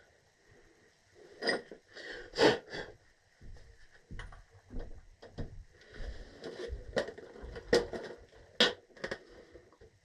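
Scattered clicks, knocks and scrapes of tools and parts being handled while a gas valve is being replaced. The loudest knocks come about two and a half seconds in and twice near the end.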